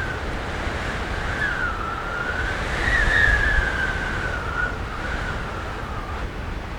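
Window whistling in strong wind: a wavering whistle that glides up and down in pitch, loudest as a gust peaks about three seconds in, over a steady rumble of wind.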